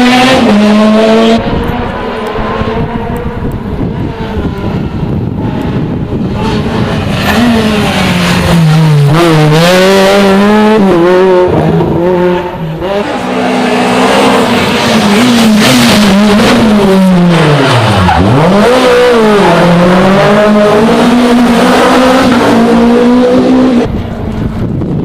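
Rally car engine revving hard on a special stage, its pitch climbing through the gears and dropping sharply on the lifts and shifts, over and over. About three quarters of the way through the pitch plunges deep and then climbs again.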